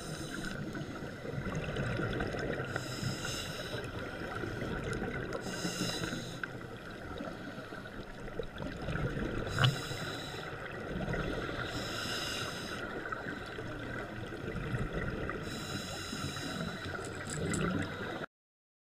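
Scuba diver's regulator breathing heard underwater: a burst of exhaled bubbles about every three seconds over a low steady rumble. A single sharp click about ten seconds in, and the sound cuts off suddenly near the end.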